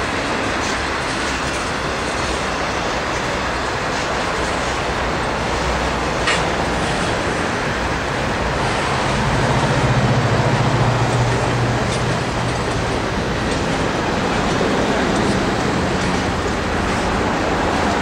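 Steel wheels of a Norfolk Southern coal train's hopper cars rolling past at close range: a steady rumble and rattle on the rails. There is a sharp click about six seconds in and a low hum that swells near the middle.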